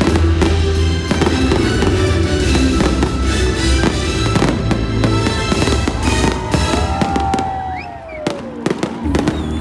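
Fireworks bursting in quick succession, many sharp bangs over loud orchestral soundtrack music played for the display. About eight seconds in the music drops away and a few single bangs stand out.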